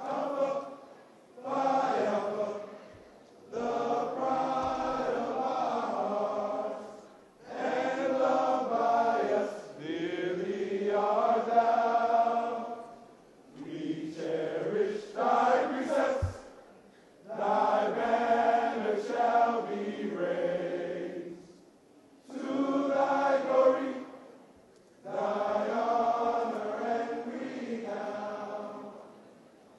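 A group of men singing together in unison, in long held phrases separated by short breaths.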